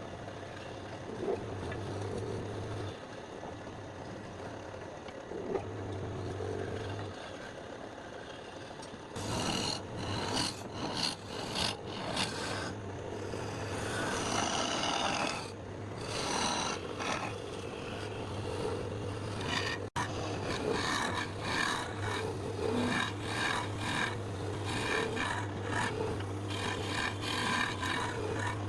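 A woodworking tool rasping and scraping on wood in quick, irregular strokes over a steady low motor hum. The scraping starts about a third of the way in, and before that only the hum and a few light knocks are heard.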